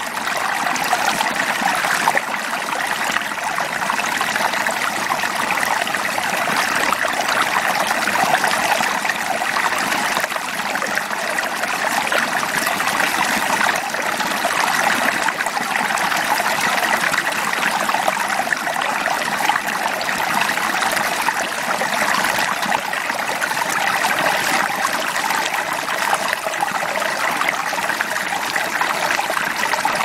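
Shallow creek water running and trickling over a rock in an even, unbroken babble.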